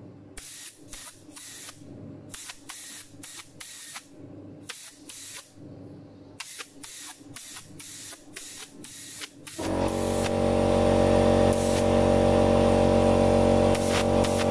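Spray paint going on in a quick series of short hissing bursts. About ten seconds in, a much louder steady hiss with a low hum takes over.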